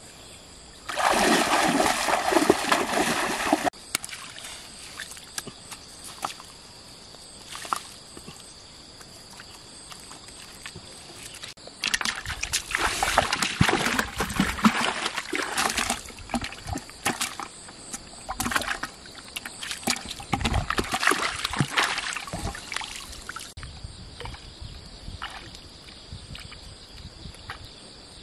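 Shallow pond water splashing and sloshing as a homemade lift net is hauled up and dragged through the water, with water pouring off the mesh. A loud burst comes about a second in, and a longer run of choppy splashing from about twelve seconds to twenty-three.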